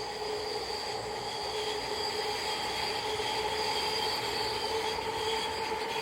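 San Diego Trolley light-rail train running by, with a steady high whine of several held tones over its rumble, growing a little louder toward the middle.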